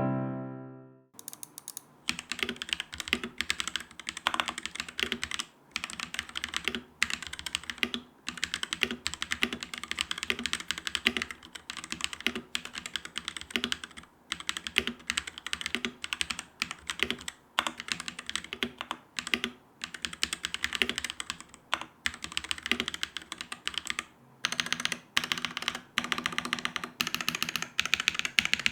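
Typing on a Langtu LT84 tenkeyless mechanical keyboard with stock blue switches: fast, continuous keystroke clicks with brief pauses between bursts. A piano note fades out in the first second before the typing starts.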